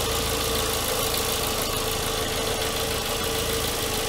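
Renault Logan's 1.6-litre eight-valve K7M petrol engine idling steadily, heard close up in the open engine bay, with a steady whine over the running.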